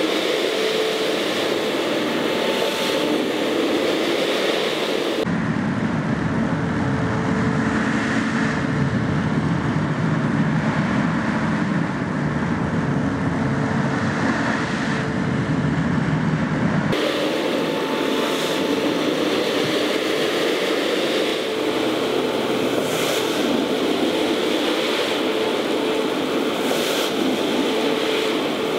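Counter-rotating brush (CRB) carpet machine running steadily, its motor humming as its two brushes scrub a foamy, shampooed rug with a wet swishing. From about five seconds in the sound turns duller and deeper for some twelve seconds, then brightens again.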